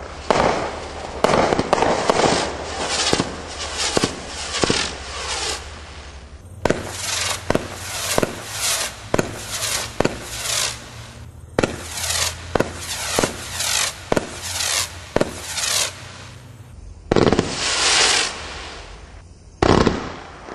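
Winda 'Big Mother Clucker' firework cake firing: shot after shot launching about one to two a second, each followed by crackling bursts. Near the end comes a short lull, then a long crackling burst and a single sharp bang.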